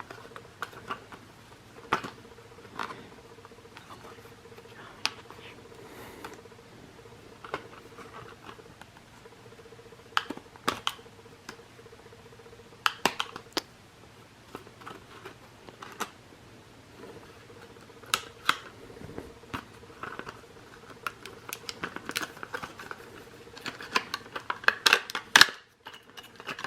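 Scissors snipping and plastic blister packaging crinkling and clicking as a toy train is cut free by hand, in scattered bursts that grow busier near the end, over a faint steady hum.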